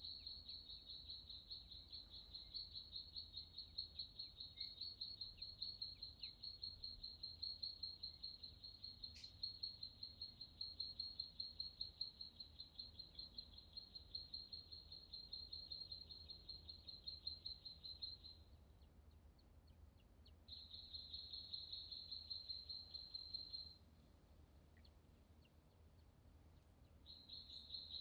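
A high-pitched, fast-pulsing trill from a calling animal, held at one steady pitch over faint background hiss. It stops about 18 seconds in, starts again for about three seconds around 20 seconds, and returns near the end.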